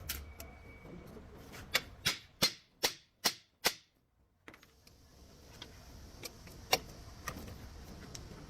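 A quick run of six sharp knocks, evenly spaced, then a short drop-out and a few scattered clicks with one sharper click.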